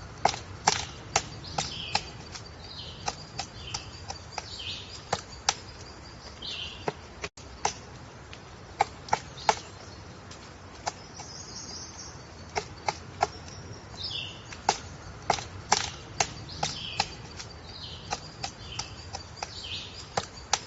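Woodpecker pecking at wood: irregular sharp taps, several in quick succession then pausing, with short high bird calls in between.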